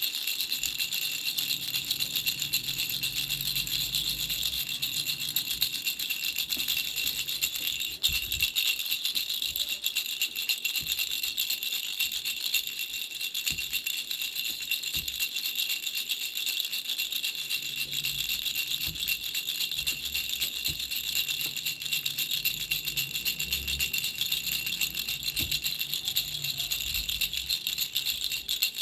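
Baby's three-flower bell rattle shaken without pause, a steady fast jingling of small bells.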